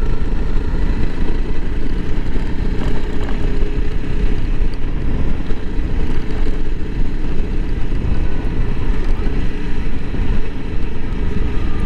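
2021 Honda CRF300L Rally's single-cylinder engine running steadily as the motorcycle is ridden along, a constant low rumble with no change in pace.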